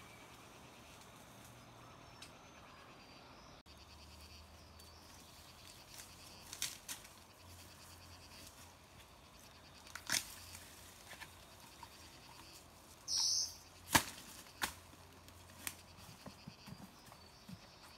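Dry bamboo leaves and sheaths rustling and crackling underfoot and against the body as someone moves through bamboo undergrowth, with scattered sharp snaps of twigs or stalks; the loudest snap comes about three-quarters of the way through, just after a short rustle.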